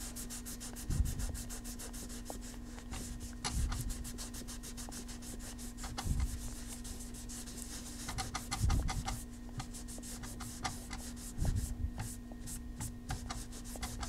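Cloth rag rubbing and scrubbing over the parkerized steel of an M1A rifle's rear sight and receiver, wiping white crayon wax off with a little alcohol, with a few soft knocks as the hand bumps the rifle. A faint steady hum runs underneath.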